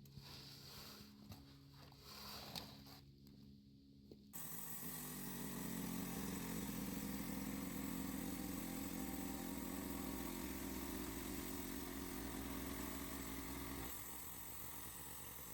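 Small gasoline engine of a portable bandsaw sawmill running steadily. It gets abruptly louder and fuller about four seconds in, as at working speed, and eases off slightly near the end.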